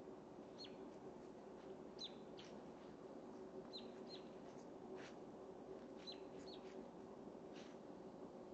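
Faint bird chirps: short high notes that slide downward, about half a dozen, some in quick pairs, over a low steady hum and a few faint ticks.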